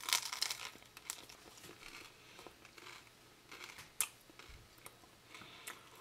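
A bite into a slice of crusty home-baked artisan bread: the crisp crust crunches and crackles for most of the first second, followed by quieter chewing with scattered sharp crunches.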